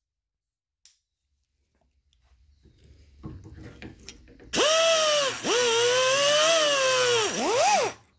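Die grinder with a sanding roll running at a high whine, grinding out the bore of a clutch pedal's pivot hole to clear excess powder coat so the hub will fit. It starts about four and a half seconds in, after faint handling noise, and its pitch dips sharply twice as the roll bites into the metal, then drops away near the end.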